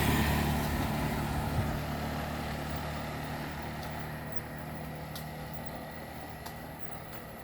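A motor vehicle that has just passed close by, its engine fading steadily as it moves away.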